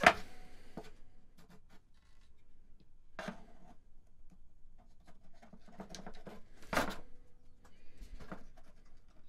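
Rotary encoders being pushed firmly into a synth kit's circuit board by hand, giving short plastic-and-metal clicks and knocks as they seat, with light handling rustle between. The sharpest click comes right at the start, others about three seconds in and around six to seven seconds.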